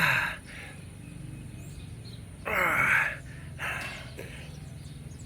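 A man breathing out hard with effort between exercise reps, short breathy exhales with a slight groan. One comes right at the start and two more about two and a half and three and a half seconds in, over a steady low outdoor background.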